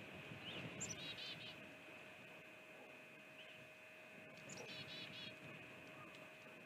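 A small songbird sings faintly, twice, each time a thin high note followed by a quick run of five or six chirps, over a steady faint hum.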